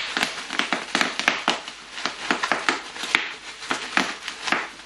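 Bubble wrap being popped by hand: a quick, irregular run of sharp pops and crackles, a few each second.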